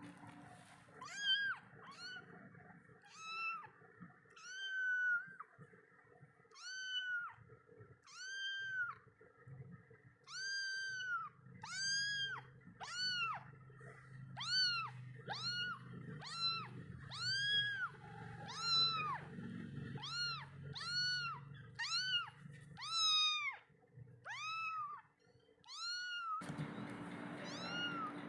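Young kitten meowing over and over, about one high, arching meow a second, calling for its absent mother and for milk. A steady hiss comes in near the end.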